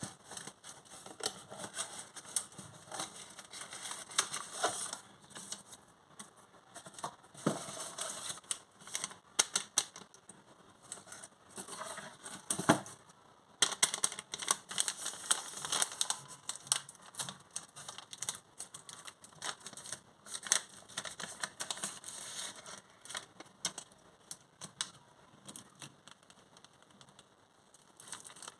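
Dense, irregular small clicks and crackles of hands handling crinkly packaging or craft material, with one sharper knock a little before halfway.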